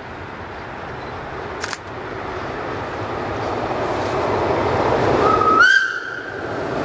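An old green electric locomotive hauling freight wagons approaches, its running noise growing steadily louder. About five seconds in it gives one short whistle that steps up in pitch partway through.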